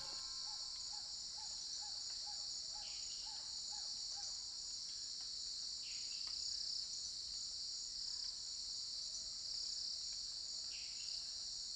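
Forest ambience: a steady, high-pitched insect chorus, with a short call repeated about two or three times a second in the first few seconds and a few brief falling calls scattered through.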